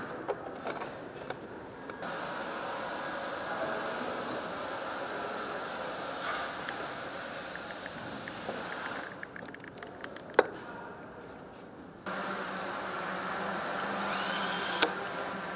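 Assembly-line workshop sounds: a steady hiss for several seconds, scattered light clicks and knocks of parts being handled, and near the end a small power screwdriver whining up in pitch and ending in a sharp click as it drives a fastener.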